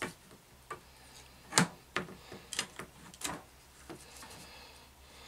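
Craft knife trimming excess FEP film, the thin plastic crackling and the blade clicking in a series of short sharp sounds, the loudest about one and a half seconds in.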